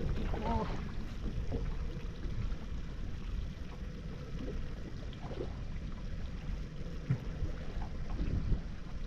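Steady low rumble of a sport-fishing boat at sea, its engine and wind on the microphone, with a few scattered knocks.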